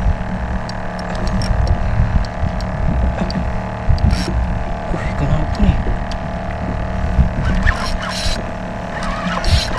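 A motor on a small fishing boat humming steadily with a low throbbing rumble, with small clicks and rustles from tackle being handled at the boat's side.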